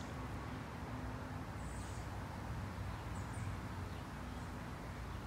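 Steady low outdoor background rumble, with two short, faint high chirps, one about two seconds in and one a little after three seconds.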